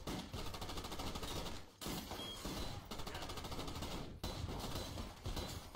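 Rapid gunfire from handguns: a dense run of shots in quick succession, broken by short pauses about two and four seconds in.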